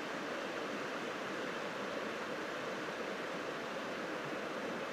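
Steady rushing of river rapids, an even noise with no breaks or distinct events.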